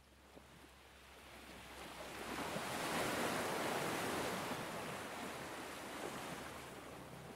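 Ocean wave washing in on a beach: a rush of surf noise that swells over about two seconds, then slowly dies away.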